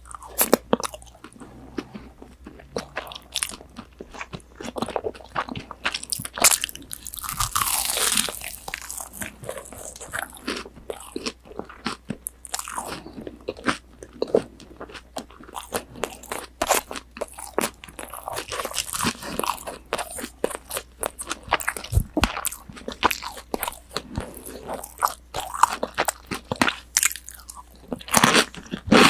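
Close-up mouth sounds of someone biting into and chewing crispy breaded, deep-fried pork cutlet (tonkatsu): a steady run of irregular crunches and crackles from the fried coating.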